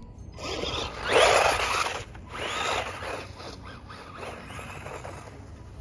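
Original Mabuchi brushed electric motor and gearbox of a 1984 Tamiya Frog RC buggy whining in surges as the throttle is worked. The pitch rises and falls, loudest about a second in, then comes in shorter bursts.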